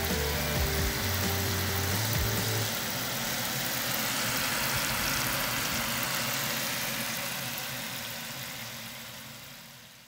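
Tap water running in a steady stream onto mushrooms in a bowl, a constant rushing splash that fades out at the end. Low music notes sound under it for the first few seconds.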